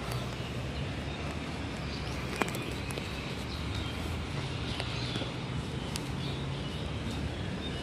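Outdoor ambience: a steady low hum with faint bird chirps, and a sharp click about two and a half seconds in.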